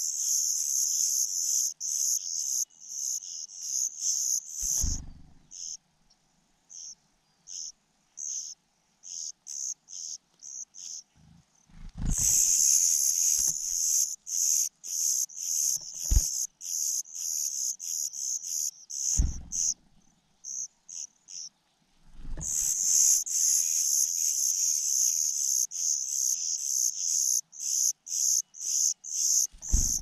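Nestlings begging for food: a rapid chorus of high-pitched cheeps that comes in three loud bursts, with scattered single cheeps between. A few brief dull thumps break in.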